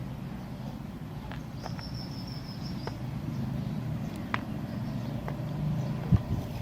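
Knife cutting soft soap: a few light clicks over a low steady hum, with a brief high steady whine a couple of seconds in.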